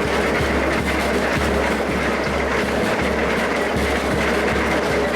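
Industrial carrot washing machine running, a steady mechanical noise with an unevenly pulsing low rumble.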